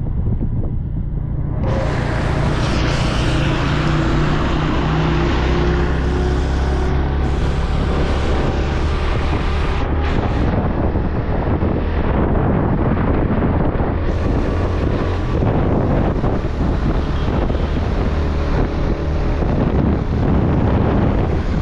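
Motorcycle running on the move, its low engine drone under heavy wind buffeting the microphone; the rush of wind thickens about two seconds in.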